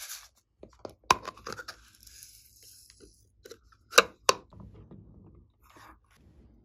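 A yellow clay disc with a piped clay border being handled and squeezed, giving sharp cracks and crackles. The loudest is a pair of snaps about four seconds in.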